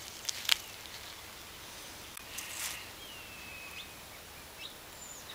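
Outdoor ambience: a steady faint hiss with a light rustle, two sharp clicks near the start, and a thin high whistle held for under a second about three seconds in.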